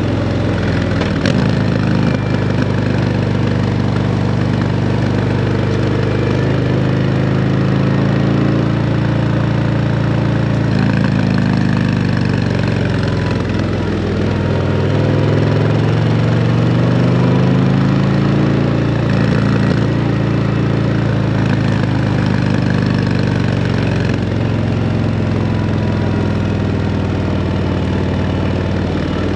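Harley-Davidson CVO Road Glide ST's Milwaukee-Eight V-twin running through a Screaming Eagle exhaust. Its revs fall a little before halfway, then climb again to the loudest point and settle back to a steady pull.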